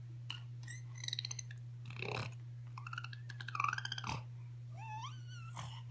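A baby's wordless vocal sounds: a few short high-pitched squeaks, then longer up-and-down coos and a rising squeal, with a couple of soft knocks in between.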